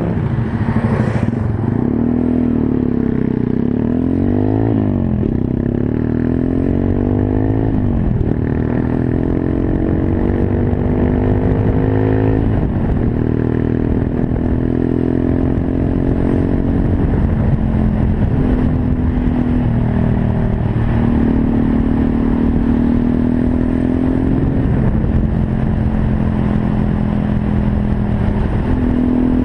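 Monkey bike's small single-cylinder engine under way, revving up and dropping back at each gear change in the first dozen seconds, then running at a steadier speed with small changes in pitch.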